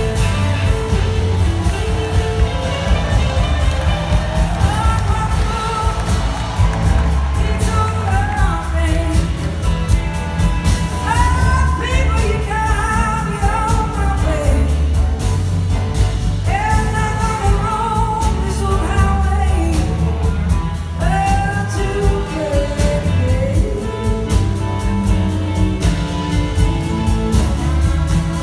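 A live blues-rock band playing a blues: several electric guitars, bass and drums, with a voice singing over them.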